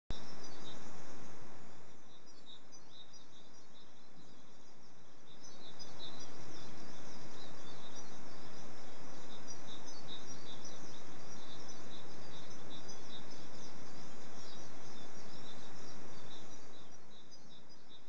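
Eurasian siskins twittering, a dense run of short high chirps that goes on throughout, over steady background noise that grows louder about five seconds in and eases near the end.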